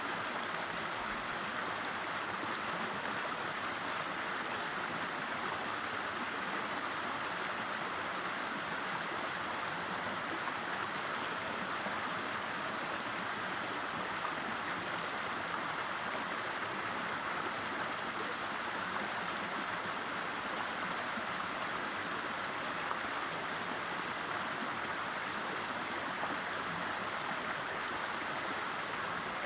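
River water running over stones, a steady rushing flow.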